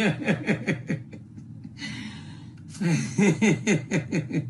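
People laughing in two bursts of quick, repeated "ha-ha" pulses, the first in the opening second and the second from about three seconds in, with a breathy pause between them.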